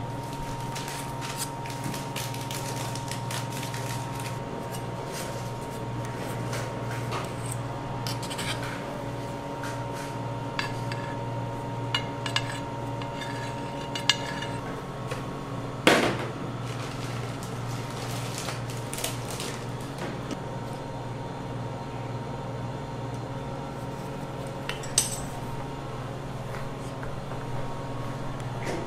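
Metal palette knife clinking and scraping against a stainless-steel cake turntable and bowl as cream is spread on a cake, with a few sharp clinks, the loudest about 16 seconds in. A steady low hum runs underneath.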